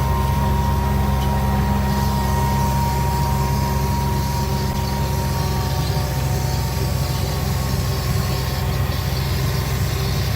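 Steady low rumble of a vehicle engine running, with a thin steady whine above it.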